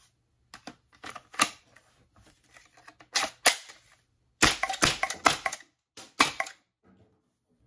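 Home-built 3D-printed HPA (compressed-air) Nerf blaster firing foam darts, its solenoid valve releasing sharp air pops. Single shots come first, then a fast burst of several shots just past the middle, then two more.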